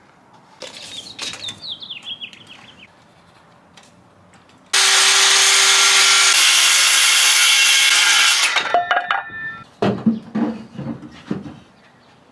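Wood scraping with a short falling squeak, then a power tool running into wood for about four seconds, the loudest sound here, its motor pitch dropping slightly partway. Afterwards a few knocks and rubbing of wooden pieces.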